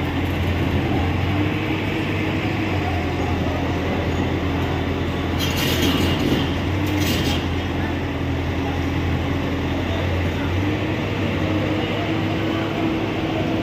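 Diesel engines of construction machinery, a tracked excavator and a crane, running steadily with a low drone. Two short hisses come about six and seven seconds in, with crowd chatter underneath.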